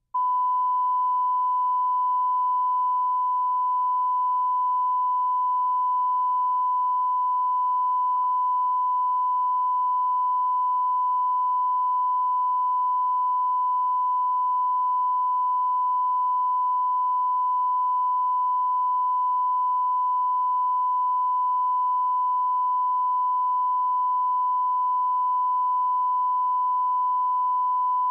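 Steady 1 kHz line-up tone, the reference tone recorded with colour bars at the head of a broadcast videotape for setting audio levels. It cuts in abruptly from silence and holds one unchanging pitch and level, with a faint click about eight seconds in.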